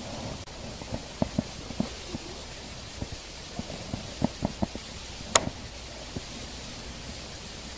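Fishing rod and spinning reel being handled, giving a string of soft, irregular knocks and taps and one sharp click about five seconds in, over a steady hiss.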